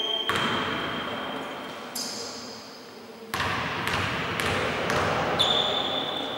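A basketball bouncing on the gym floor about five times, each bounce echoing around the hall, as a player dribbles at the free-throw line. A thin, high squeal is heard twice.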